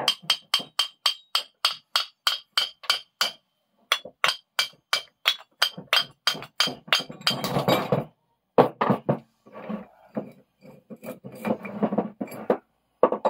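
Hammer striking a cast-iron Record No. 1 bench vice to knock it apart: a quick run of ringing metal taps, about three a second. After a short break there are more taps, then a scraping rattle and duller clunks as the screw and sliding jaw are worked loose and set down on the bench.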